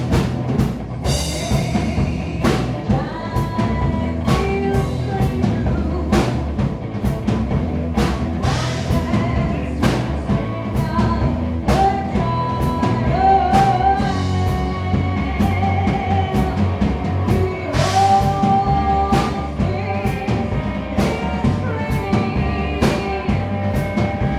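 Live rock band playing, with a singer's voice over a drum kit keeping a steady beat.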